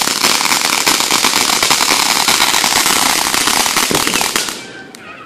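Ground fountain firework spraying sparks with a loud, dense crackling hiss that dies away about four and a half seconds in as the fountain burns out.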